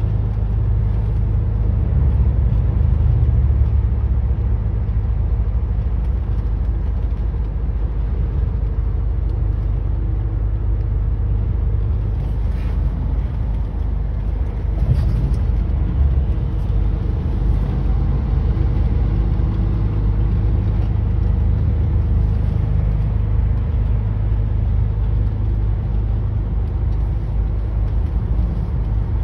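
Steady low rumble of a truck's engine and tyres on the road, heard from inside the cab while it cruises at freeway speed.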